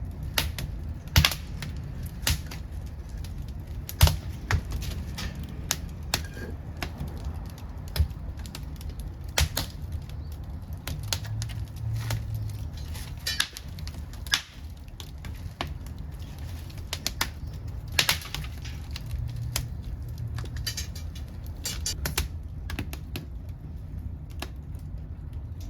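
Wood fire in a secondary-combustion wood-gas stove, burning dry old furniture wood with loud, irregular sharp crackles and pops over a low steady rumble of the flames.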